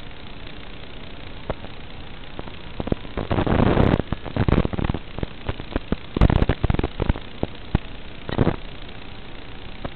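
Steady hiss of an analog FPV video receiver's audio channel, with loud bursts of crackling static as the radio link breaks up, from about three to five seconds in, again around six to seven seconds, and once more near eight and a half seconds.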